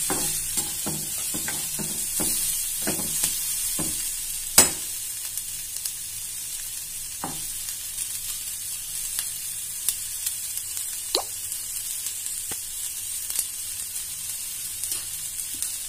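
Onions, garlic and curry leaves sizzling in hot oil in a non-stick kadai while a slotted spatula scrapes and taps against the pan as they are stirred. The taps come quickly for the first few seconds, then more sparsely, with one sharper knock about four and a half seconds in.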